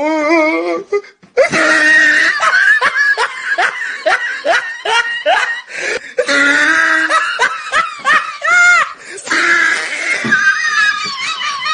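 Hearty laughter in quick repeated bursts, breaking off briefly about a second in.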